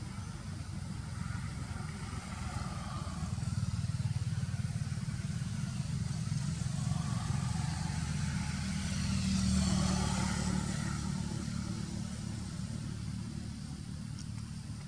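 Steady low rumble of a motor vehicle engine, swelling about nine to ten seconds in as a vehicle passes close.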